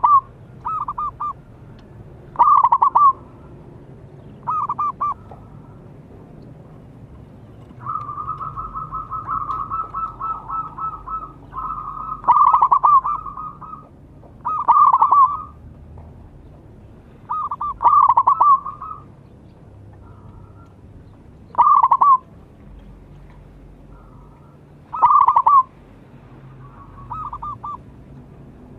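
Zebra dove cooing: short bursts of rapid staccato coos, repeated every two or three seconds, with a longer rolling run of coos from about 8 to 11 seconds in.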